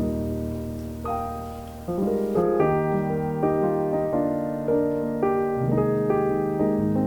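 Background piano music: a gentle tune of held notes over sustained bass notes.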